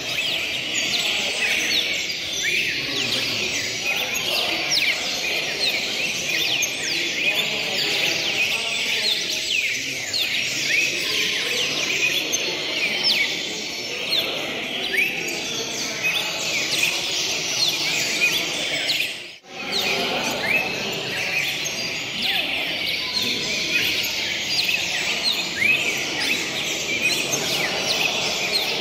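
Many caged cardinals chirping and singing at once: a dense, unbroken chorus of short, high, falling notes over a low background murmur. The sound cuts out for an instant about two-thirds of the way through.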